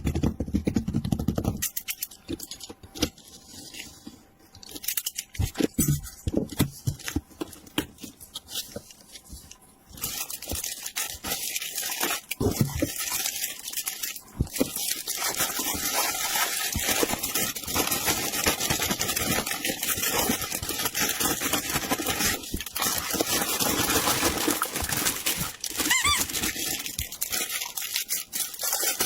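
Plastic packaging crinkling and tearing as a toy is unboxed: scattered rustles and clicks at first, then from about a third of the way in a dense, continuous crackle of crinkled plastic.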